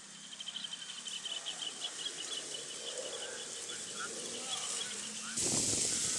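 An insect chirping in a rapid, even trill, with a few faint short chirps over it. Near the end it is cut off by a sudden, louder steady hiss.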